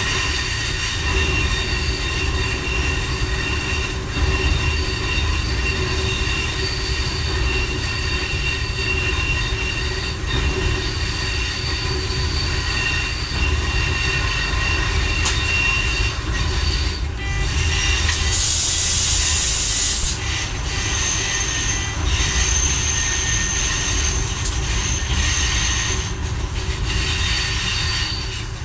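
Fiat-built Y1 diesel railcar heard from its driver's cab, running slowly along the track: a steady low rumble of engine and wheels with several high, steady whining tones over it. About two-thirds of the way in, a sharp hiss lasts about two seconds.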